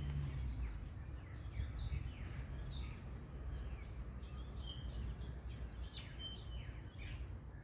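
Outdoor birdsong: several small birds chirping with many short falling chirps and a few brief whistled notes, over a steady low background rumble.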